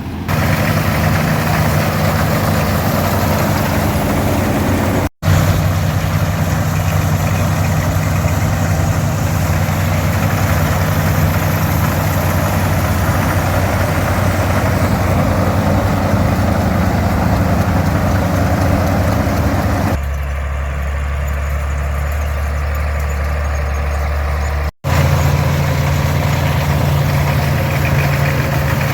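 Farmall 460 diesel tractor with a 282 engine running steadily under load as it pulls and drives an International 82 pull-type combine harvesting oats, together with the whir of the combine's machinery. The sound cuts out for an instant twice, and for a few seconds near the end it turns deeper and duller.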